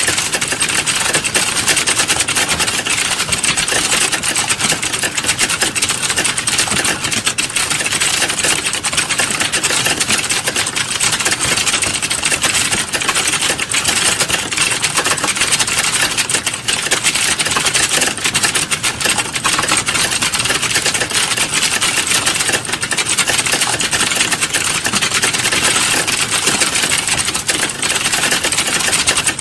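Rapid, continuous computer-keyboard typing: a dense, unbroken stream of key clicks at an even pace.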